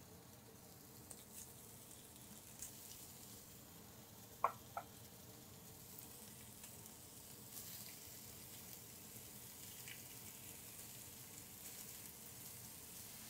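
Italian sausage sizzling faintly in a stainless steel skillet as it is broken up and stirred with a utensil, with two short metallic clinks about four and a half seconds in.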